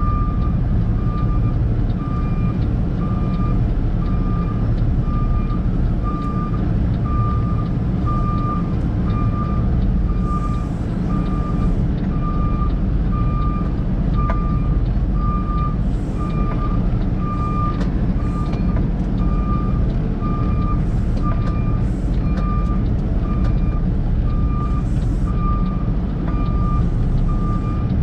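A backup alarm beeping steadily, about once a second, over the low rumble of a heavy engine running.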